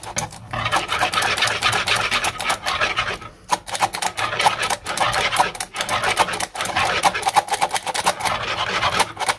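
Metal hand flour sifter clicking rapidly as it is worked over the bowl, while a wire whisk scrapes and stirs the flour into the egg-and-melted-butter mixture. There is a brief pause about three seconds in.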